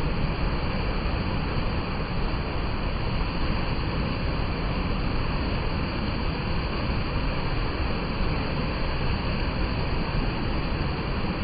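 Mountain stream rushing steadily over rocks: a constant, loud wash of water noise with nothing else in it.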